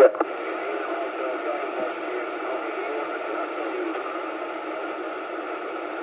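CB radio speaker hissing with steady static on an open channel between transmissions, the band-limited noise of a receiver with no station keyed up, with faint garbled traces in the hiss.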